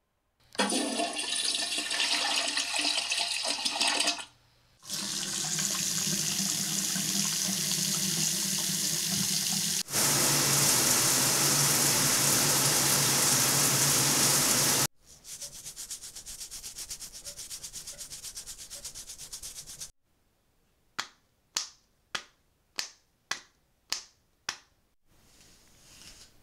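Short recordings of running water in a bathroom, cut one after another. The loudest is a handheld shower head spraying, from about ten to fifteen seconds in. It is followed by a run of about ten sharp clicks or taps near the end.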